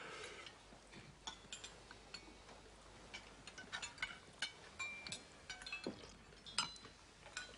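Spoons clinking and tapping against soup bowls and glassware at a dinner table: soft, irregular clinks, a few with a brief ring.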